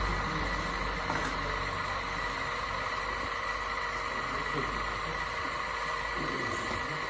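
Radio-controlled construction model running: a steady electric whine and hum made of several even tones.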